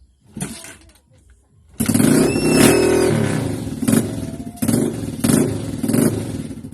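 Old motorcycle engine, just repaired, running and being revved: it comes in sharply about two seconds in, then rises and falls in a few short blips of the throttle.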